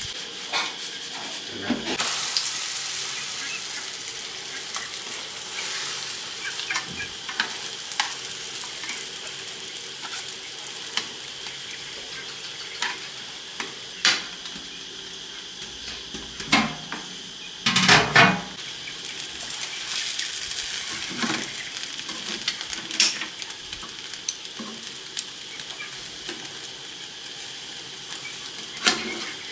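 Food sizzling steadily in a hot pan, with occasional knocks and scrapes of a cooking utensil against the pan, the loudest clatter about eighteen seconds in.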